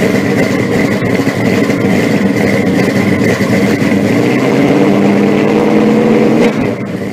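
A loud engine running at held revs, fading out near the end.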